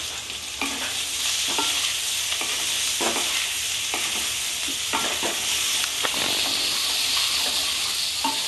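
Potato pieces sizzling in hot oil in a nonstick kadai, stirred with a spatula that scrapes and knocks against the pan every second or so from about half a second in. The potatoes are par-boiled and being fried until browned.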